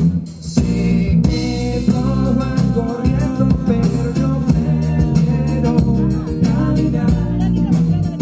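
Live band playing a song: electric bass, acoustic guitar and drum kit, with voices singing over them. The music thins out briefly just at the start, then the full band comes back in.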